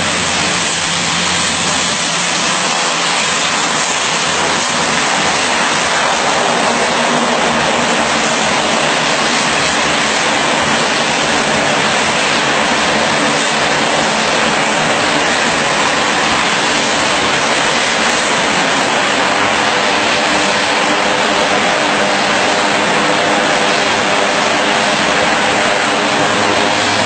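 Twin turboprop engines of a small high-wing passenger plane running loud and steady close by as it taxis and turns on the runway, a dense rushing drone with an even level throughout.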